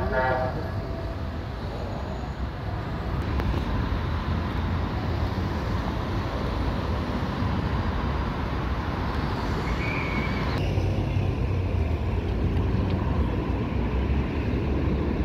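Steady outdoor traffic noise: a continuous low rumble of passing road traffic with no distinct events.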